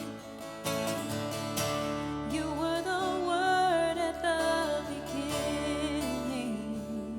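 Live worship band playing a slow song on acoustic guitar and piano over bass. A singer comes in about two seconds in with long, wavering held notes.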